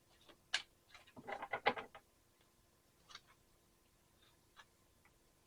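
Tarot cards being handled and drawn from the deck: a sharp snap, a quick run of rapid card flicks about a second in, then a few faint ticks.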